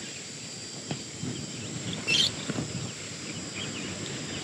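Dry-scrub ambience with a steady high insect drone, a brief bird chirp about two seconds in, and a few light knocks.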